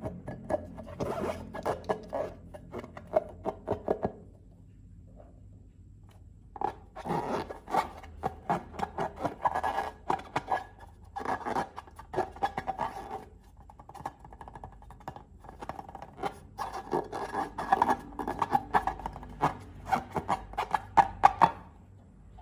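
Close-up crackling and scraping sounds of slime-making materials being handled and worked, in three bursts of sticky, clicky noise with short pauses between.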